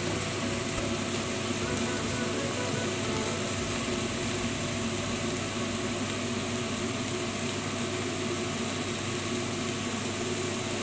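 Steady, even hiss with a low hum from a stovetop where pans are heating and diced zucchini is cooking.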